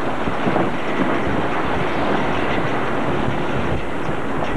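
Wind blowing hard and steadily across the microphone on a sailboat under way in choppy water, a continuous rushing roar with the wash of the sea beneath it.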